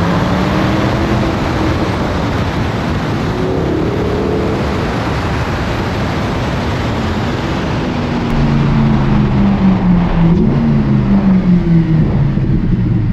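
Mercedes-AMG SLS naturally aspirated 6.2-litre V8 driving on the road through a sport exhaust with the rear silencer section removed, its note mixed with a strong rush of wind and road noise. From about eight seconds in the engine gets louder and its pitch climbs and steps as the car accelerates.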